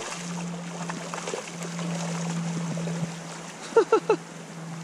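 Shallow river running over stones under a steady low hum, with three short voiced exclamations close together near the end.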